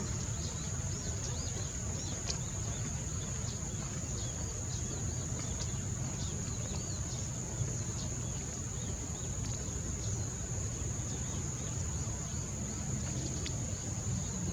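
Outdoor ambience: many short, high bird chirps repeated throughout, over a steady high-pitched tone and a low rumble.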